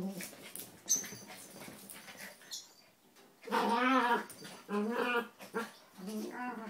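A toy poodle and a Maltese vocalizing in play as they wrestle: faint scuffling at first, then three drawn-out, wavering growl-like calls in the second half, the first the loudest.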